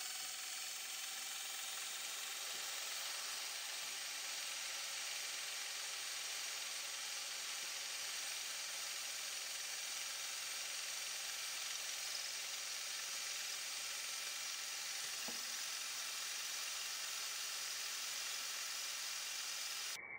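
CNC milling machine's spindle running a boring head to finish a bearing-fit bore in an aluminium part: a steady hiss, with the spindle's whine levelling off and fading in the first couple of seconds after spin-up.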